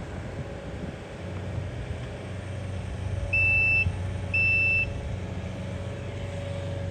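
Low, steady rumble of vehicle engines in slow traffic, with two short, high electronic beeps about a second apart near the middle.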